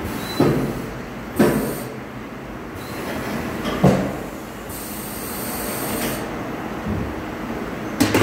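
Tyre-changing machine being worked by hand: four sharp metal knocks and clanks of tool and wheel, with two short hisses of compressed air, the second lasting about a second and a half, over a steady workshop hum.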